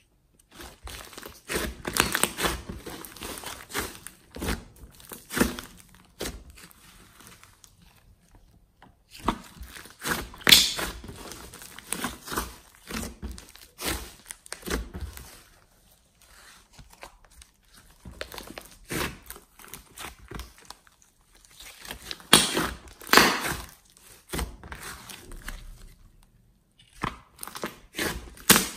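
Thick slime with clay mixed in being stretched, kneaded and pressed by hand, crackling and popping in irregular bursts with a few short pauses.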